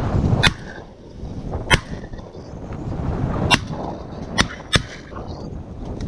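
Five sharp shotgun shots, unevenly spaced over about four and a half seconds, over a low rumble of wind on the microphone.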